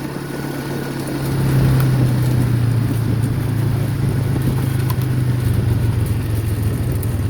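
A motor vehicle's engine running steadily as it is driven, its hum growing louder about a second and a half in and then holding.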